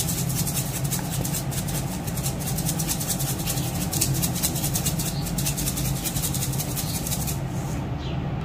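Dried oregano being shaken from a plastic shaker jar, a fast steady rattle that stops near the end, over a steady low hum.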